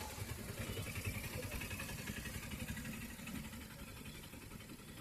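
A motor vehicle engine running close by, a steady low rumble with street noise, a little quieter in the second half.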